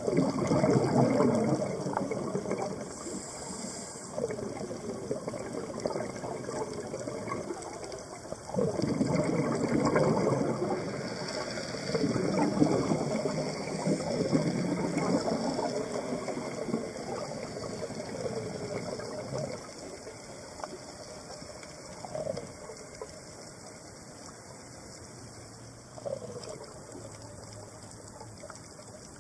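Scuba diver's regulator exhaust bubbles, heard underwater through the camera: irregular bursts of crackling, bubbling noise every few seconds, growing weaker in the last third.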